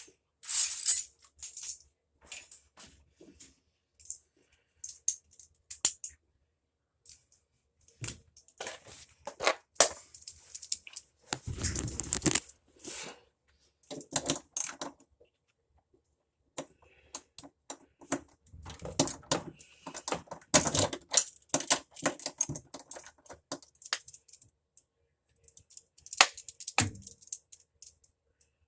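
Hand tools and small metal parts being handled: scattered clicks and short metallic clinks and rattles, in bursts with pauses between, with a heavier knock about twelve seconds in.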